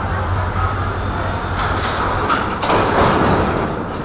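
Freight train of covered goods wagons rolling past close by: a steady rumble and clatter of wagon wheels on the rails, growing louder around three seconds in.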